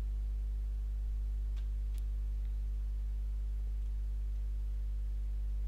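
Steady electrical mains hum, a low buzz with a stack of overtones, under the narration microphone. Two faint keyboard clicks come close together about a second and a half in, a double key press.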